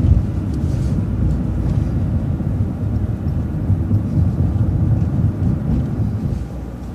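City transit bus driving, a steady low engine and road rumble heard from inside the bus.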